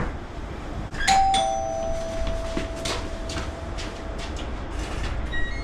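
Two-tone doorbell chime about a second in: a higher note, then a lower note held for about three seconds.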